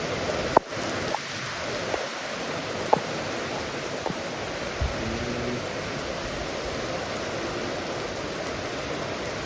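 Heavy rain pouring down with a steady hiss. A few short sharp knocks or drips land in the first five seconds.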